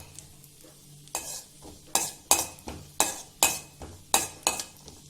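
A spoon stirring cashew nuts and raisins frying in ghee in a kadai, scraping and clinking against the pan about twice a second, over a faint sizzle of the hot ghee. The strokes start about a second in.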